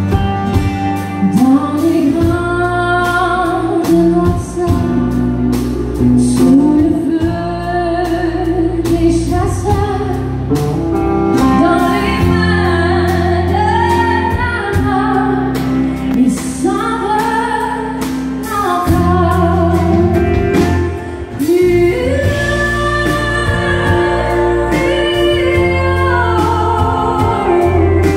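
Live country band playing: a woman sings lead over electric and acoustic guitars, bass guitar and drums, with a steady beat.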